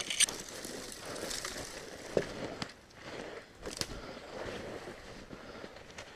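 A person walking fast through dense brush on snow: branches and twigs brushing and scraping along clothing, with footsteps in the snow and a few sharp clicks of twigs catching.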